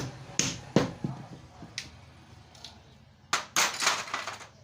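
Sharp clicks and knocks of metal parts being handled during a motorcycle front shock absorber repair: a few separate knocks in the first two seconds, then a quick cluster of clinks near the end.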